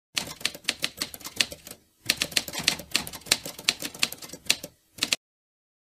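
Typewriter keystroke sound effect: a quick run of key clacks as a title is typed out letter by letter. It breaks off briefly just before two seconds in, then runs again and stops about five seconds in.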